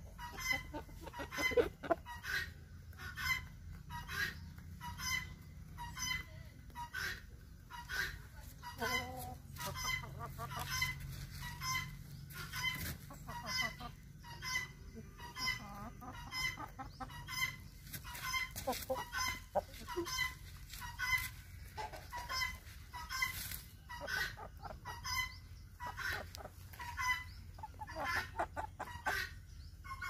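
Chickens clucking: short clucks repeat evenly, about three every two seconds, throughout.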